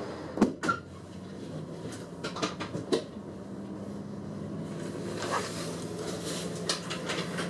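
Driver's cab of a diesel railcar pulling away: a low engine hum builds from about three seconds in. Several sharp clicks and knocks from the cab come about half a second in, around two to three seconds in, and again near the end.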